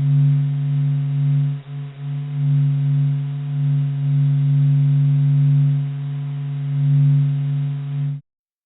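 Sonified spacecraft data, with electromagnetic signals from a space object turned into audio. It sounds as a steady low drone of a strong low tone with a second tone above it, slowly swelling and fading with a brief dip near two seconds in, then cutting off suddenly near the end.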